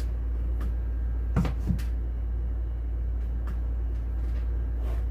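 Light clicks and knocks of hands on the plastic lid of a Kuppet twin-tub portable washer, the loudest two knocks about a second and a half in, over a steady low hum.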